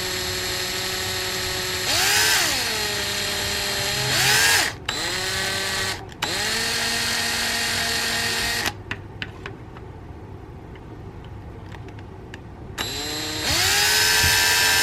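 Small electric drill with a 1/16 inch bit drilling holes in a model roll cage's mounting tabs. The motor whines in several short runs, spinning up and stopping, and its pitch dips and recovers about two seconds in. It falls quiet for a few seconds past the middle, then a last run starts near the end.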